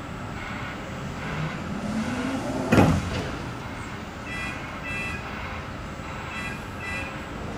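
Sliding passenger door of a Class 484 electric multiple unit closing: a rising motor whine, then a loud thud as it shuts about three seconds in. Two pairs of short electronic beeps follow over the train's steady hum.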